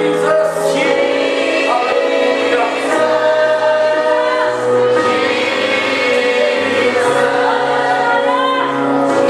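Gospel choir singing with instrumental accompaniment: sustained chords over a bass line that moves every second or two.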